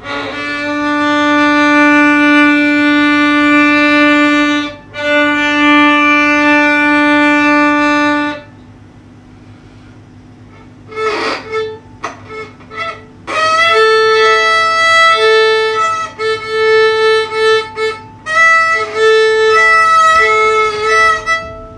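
Violin bowed: two long, held low notes, a break, then a few short notes and a passage of shorter notes at higher pitch in the second half.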